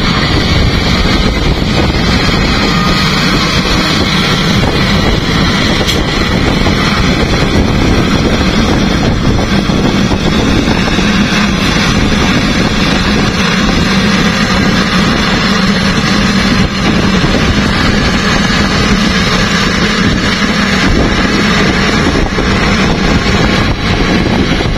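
LiuGong wheel loader's diesel engine running steadily under load as the machine pushes dirt with its bucket, a loud unbroken drone with a constant low hum.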